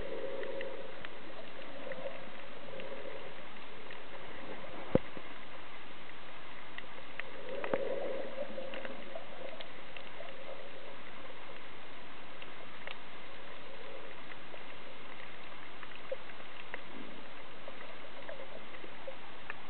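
Muffled underwater noise heard through a camera held under water, with scattered faint clicks and crackles, a single sharp click about five seconds in, and a couple of low, muffled swells of sound near the start and about eight seconds in.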